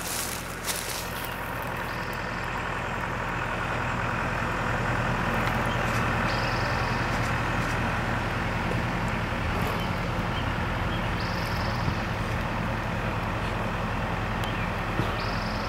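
Freight train rumbling steadily with a low engine hum, growing louder over the first few seconds. A short higher-pitched sound recurs about every four seconds.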